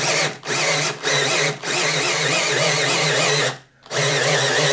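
Handheld electric drill with a 12 mm wood bit boring the end-pin hole through the end of a Donner DAD-140C acoustic guitar. It starts and stops in short bursts for the first second and a half, then runs steadily, stops briefly near the end, and starts again.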